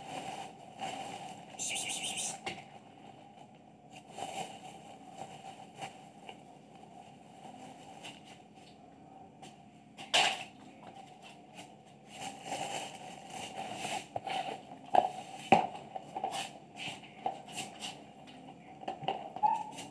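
Cats and a dog feeding from a clear plastic tray on the floor: dry food clattering on the plastic and being crunched, with scattered sharp clicks and knocks, the loudest about ten seconds in and two more near fifteen seconds.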